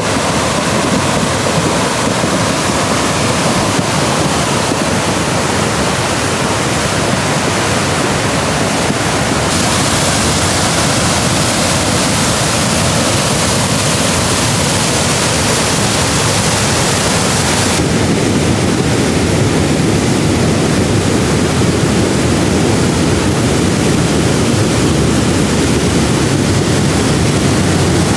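Floodwater rushing across a road in a strong current: a loud, steady rush of water. Its tone changes abruptly about a third of the way in and again past halfway.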